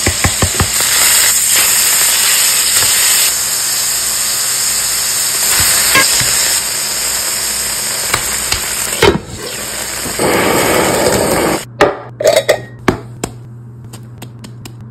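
Smashed beef burger patties frying in oil in a hot stainless steel skillet: a loud, steady sizzle with a few clicks near the start. About three quarters of the way in the sizzle cuts off, and a few sharp taps and clicks follow.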